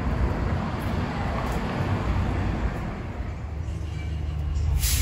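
Street traffic: a steady low rumble of passing cars, with one sharp click near the end.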